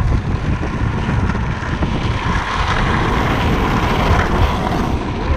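Wind buffeting the microphone of a camera moving at speed, over the steady rumble of board wheels rolling on asphalt during a downhill freebord run.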